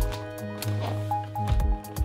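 Background music: held notes over a pulsing bass line.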